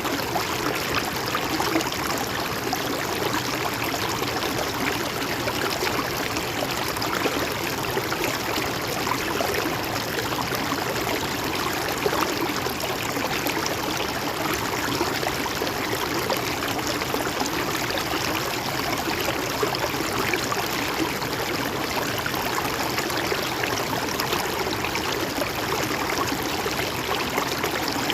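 A shallow stream running steadily over rocks, with a continuous babbling, trickling rush of water.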